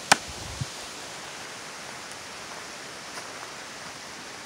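Steady hiss of outdoor background noise, with a sharp click just after the start and a duller thump about half a second later.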